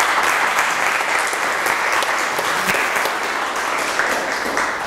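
Audience applauding, a steady spread of many hands clapping that tapers off near the end.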